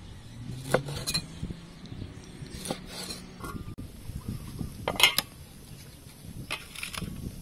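A cleaver chopping through eel pieces on a wooden board, a few sharp knocks, then a handful of metallic clinks of a utensil against a stainless steel pot of soup.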